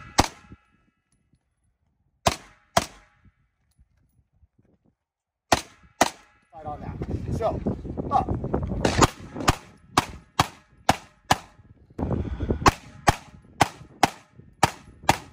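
Pistol shots. First a single shot, then two quick pairs about half a second apart, then two long strings of shots at about three a second, each crack ringing briefly. A low rushing noise lies under the later strings.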